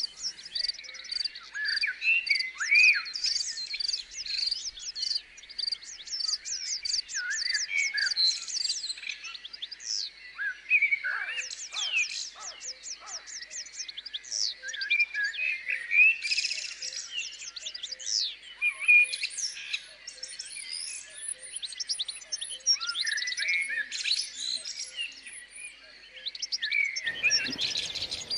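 A chorus of small songbirds: many overlapping high chirps and rapid twittering trills. A low rushing noise comes in near the end.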